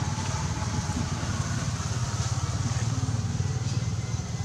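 Motor engine running steadily at low revs, with an even, rapid pulse.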